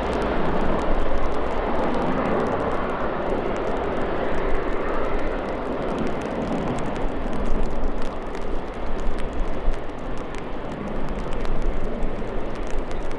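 Airbus A380's four Rolls-Royce Trent 900 turbofans running at taxi power as the airliner rolls past: a steady jet engine noise with no break.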